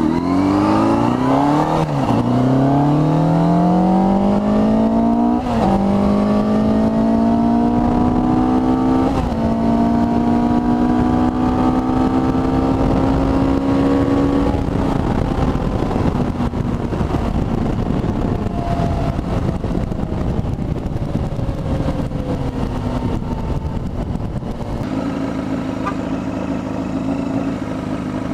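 Yamaha YZF600R inline-four motorcycle engine accelerating through the gears: the pitch climbs, drops at three upshifts, then holds. About halfway through it comes off the throttle and the note winds down slowly, settling to a steady low note near the end, with wind noise on the mic throughout.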